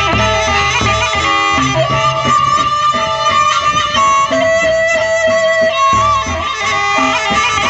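Gendang beleq ensemble playing traditional Lombok music: a suling (bamboo flute) melody of held notes over the beat of large double-headed gendang beleq drums, with small gongs and cymbals.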